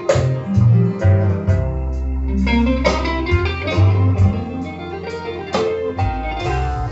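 Blues music with plucked guitar over a bass line, an instrumental passage without singing, played back from a cassette on an Akai GXC-570D cassette deck.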